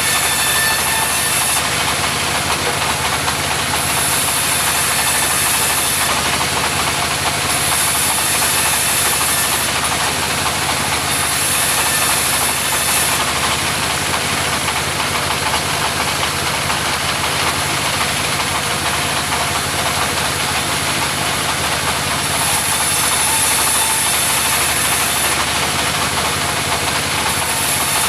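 Engine of a mobile sawmill running steadily, with a high hiss that swells and fades about six times, every few seconds, as the saw cuts through timber.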